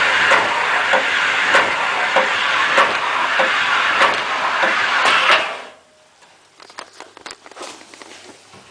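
Hotpoint Aquarius tumble dryer running with its drum rubbing and knocking about once every 0.6 s, a loud scraping rattle that stops about five and a half seconds in, leaving only light clicks. The banging comes from the drum slanting back after its rear bearing shaft broke.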